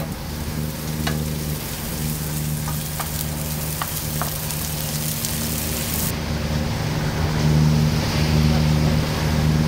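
Vegetables sizzling in a frying pan as they are stirred with a wooden spoon, with a few clicks of the spoon against the pan, over the steady hum of the sailboat's diesel engine. The sizzling cuts off about six seconds in, leaving the engine hum.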